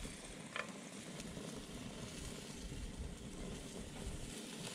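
Marinated rabbit pieces sizzling on a gas grill, a steady hiss, with a short click of the tongs about half a second in.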